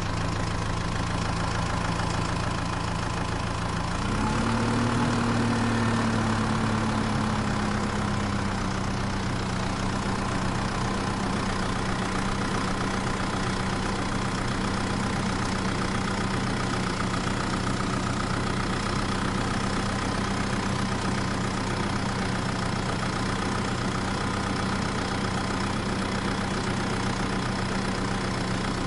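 Tractor engine idling steadily; about four seconds in the revs rise briefly, then settle slowly back to an even idle.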